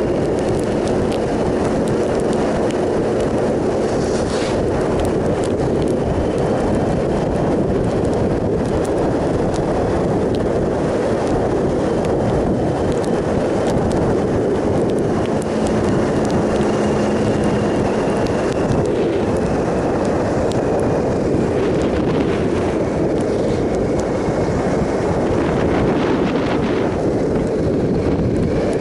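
Wind rushing over the microphone of a 2007 Triumph Sprint ST 1050 at road speed, with the bike's three-cylinder engine running steadily underneath.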